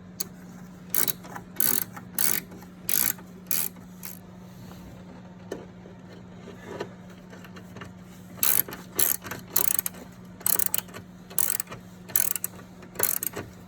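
Hand socket ratchet clicking in short strokes as the nuts on top of a strut mount are run down snug. A few spaced strokes come first, then a pause, then a quicker run of strokes in the second half.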